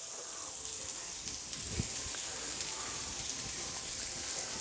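Vegetables frying in stir fry oil on a Blackstone flat-top griddle, a steady sizzle.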